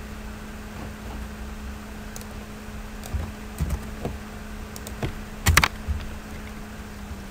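Computer keyboard keystrokes: a few scattered, irregular key presses, the loudest pair about five and a half seconds in, over a steady low hum that stops near the end.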